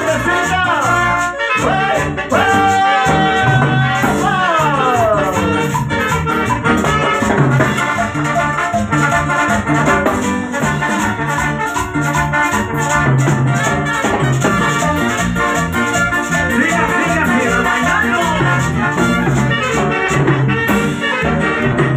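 A live Latin dance band playing an instrumental passage: the horn section plays descending falls a few seconds in, over a steady bass line, percussion and a hand-held shaker keeping the rhythm.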